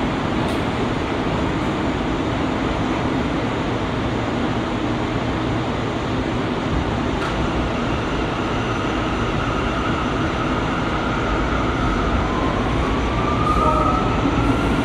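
Bombardier R179 subway car running along the track, heard from inside the car as a steady rumble. About halfway through, a thin steady tone comes in, and near the end another tone rises in pitch.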